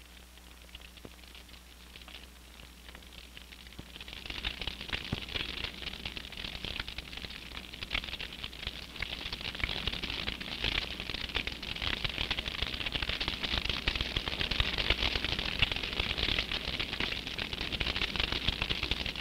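Forest fire crackling: a dense, irregular crackle of burning trees, faint at first and growing much louder about four seconds in.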